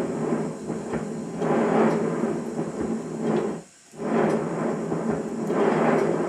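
5-inch gauge model Stirling Single locomotive running on rollers, its driving wheels and motion giving a knocking rumble that swells and fades every second or two. About four seconds in it stops briefly and then starts again as it changes direction between forward and reverse.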